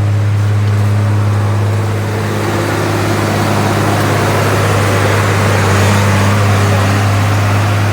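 30,000-pound excavator's diesel engine running with a steady low hum, its noise swelling for a while about two-thirds of the way through.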